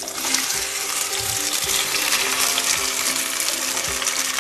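Chopped okra pieces dropped into smoking-hot mustard oil in a kadhai, setting off a dense, steady sizzle. Soft background music plays underneath.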